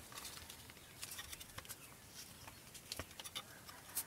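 Faint, scattered small clicks of hard plastic being handled as the action camera's tight waterproof case is worked open.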